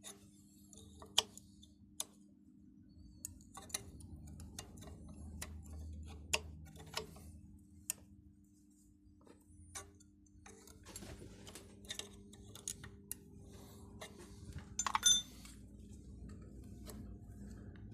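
Scattered sharp metal clicks and scrapes as a tool picks at the stuck remains of a seized pin in a brake caliper bore, with a louder scrape about 15 seconds in. A steady low hum runs underneath.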